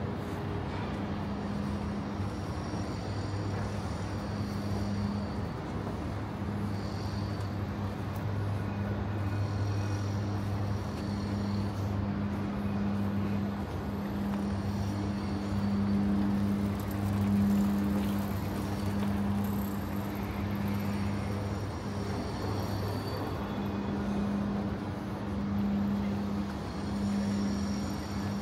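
City road traffic: passing cars with tyre and engine noise over a steady low hum.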